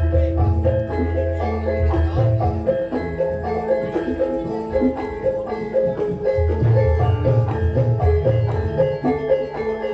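Javanese gamelan-style music of tuned mallet percussion playing a fast, evenly repeating melodic pattern over deep bass notes, played loud through a sound system under test.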